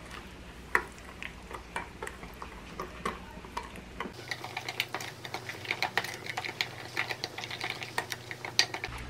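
Spoon stirring a thick dakgalbi seasoning sauce in a glass bowl, with light clinks of the spoon against the glass. The clinks come more often from about four seconds in.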